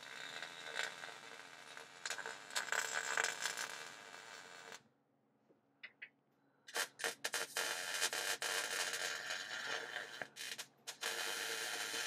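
Arc welder crackling as a heavy tack weld is laid on steel trailer hitch tube. It runs for about five seconds, stops for about two seconds, then restarts in a few short bursts before a longer run with two brief breaks.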